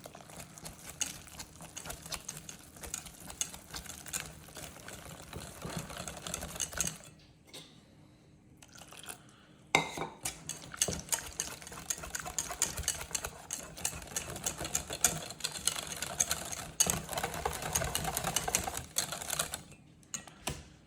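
Buttermilk-and-flour batter being stirred fast in a bowl, the utensil ticking rapidly against the bowl. The mixing stops for about two seconds some seven seconds in, a sharp knock follows, and the fast stirring resumes.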